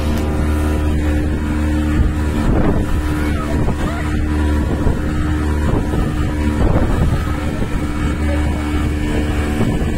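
Speedboat's engine running steadily at speed, with water rushing and splashing along the hull and wind on the microphone. There are brief louder splashes about two and a half seconds in and again near seven seconds.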